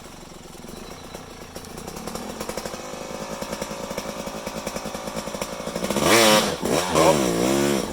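Yamaha off-road engine pulsing at low revs and slowly building, then revved hard up and down several times near the end as the vehicle tries to climb out of the gully.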